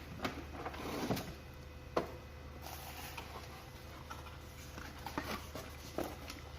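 A box being opened and its packaging handled by hand: scattered light clicks and knocks with soft rustling between them.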